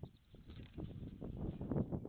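Wind buffeting the microphone in irregular gusts, building after the first half second.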